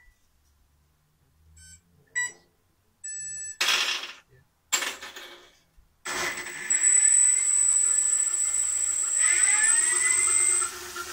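Combat robot's spinning weapon powered up for the first time: a few electronic beeps and two short bursts of noise, then the weapon spins up with a rising whine about six seconds in. It runs loud with a high steady whine, rises again near the end, then drops off sharply.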